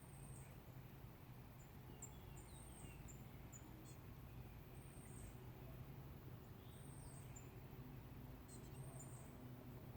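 Faint woodland birds calling: short, very high, thin notes repeated every second or so, with a few softer falling whistles among them, over a steady low rumble.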